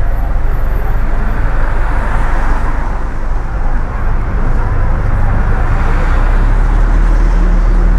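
Car driving on wet city streets: steady engine and road rumble with the hiss of tyres on wet pavement, the low rumble growing a little stronger in the second half.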